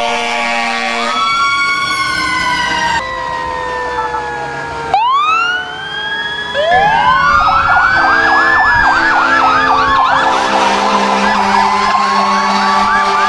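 Several fire engine sirens sounding over one another: slow rising and falling wails and a fast yelp, with air horns blowing steadily near the start and through the second half.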